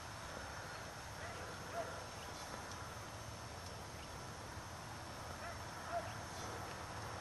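Quiet outdoor ambience: a low steady rumble of wind on the microphone, with a few faint short bird calls, one just under two seconds in and two more around six seconds in.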